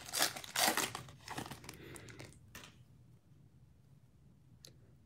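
Foil wrapper of a Donruss Optic basketball card pack crinkling as it is pulled open and the cards are drawn out. The crinkling stops about two and a half seconds in, followed by one faint click near the end.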